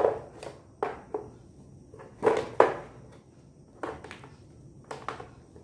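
Sharp knocks and clacks from handling a Pigeon induction cooktop and its power cord and plug on a tile floor. There are about eight of them, irregularly spaced.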